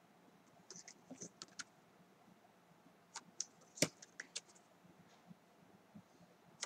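Paper flash cards being handled and swapped by hand: faint scattered clicks and taps, a cluster about a second in and another a little past the middle, with the sharpest snap just under four seconds in.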